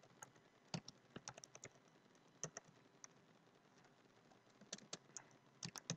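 Computer keyboard typing: a run of faint keystrokes, thinning out for about two seconds midway, then another quick run near the end.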